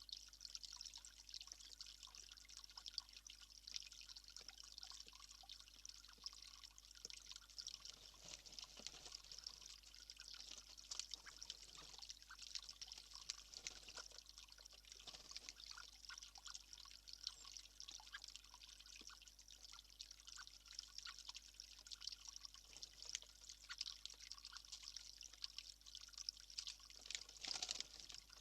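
Faint, steady trickle of running water, with many small ticks and drips scattered through it.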